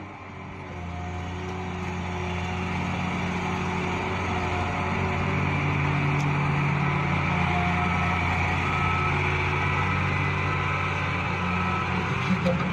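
Tracked feller buncher with a disc saw head running: a steady diesel engine drone that builds over the first few seconds and then holds.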